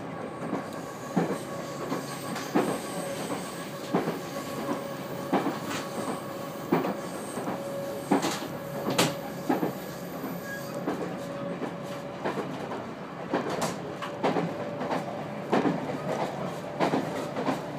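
Inside a JR 213-series electric train on the move: a steady running rumble with the wheels clacking over rail joints about every second and a half, and a faint steady whine underneath.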